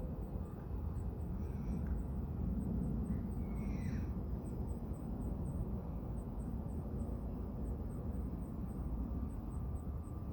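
Insects chirping in a steady, regular series of short high pulses, about two or three a second, over a steady low rumble.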